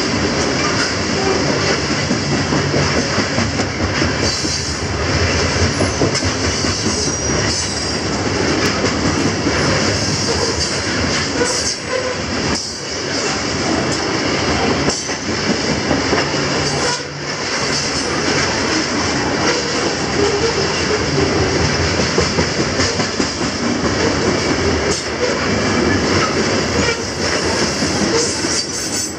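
Loaded coal hopper cars of a CSX freight train rolling past close by: a loud, steady rumble and clatter of steel wheels on the rails, with a thin, steady wheel squeal running through it.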